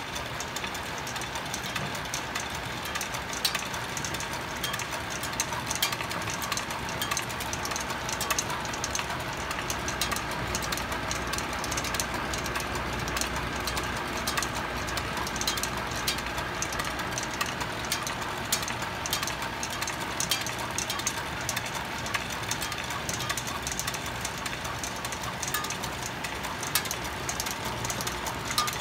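Wind-driven wooden whirligig running: its spinning propellers whirr steadily while its wooden shaft, gear wheels and figures keep up a rapid, irregular clicking and clacking, including the tap-dancer figure's shoe tapping on its board.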